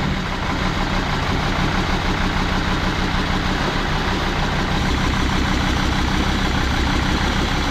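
Jeep Grand Cherokee WJ's 2.7 CRD five-cylinder common-rail diesel idling steadily just after starting. It is running with heavy blow-by, which the owner says pressurises the sump too much for the additive to go in through the oil filler.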